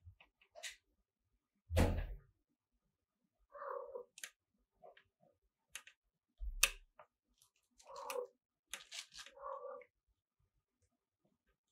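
Short cat mews, three of them, from a nursing litter of kittens and their mother, with scattered faint clicks and rustles of the kittens moving on the bedding. Two dull thumps, about two seconds in and again near seven seconds, are the loudest sounds.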